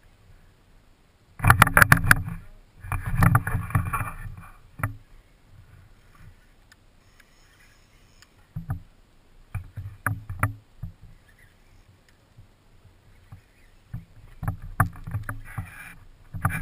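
Small waves slapping and knocking against the side of a fishing boat's hull in irregular bursts, with quieter gaps between them.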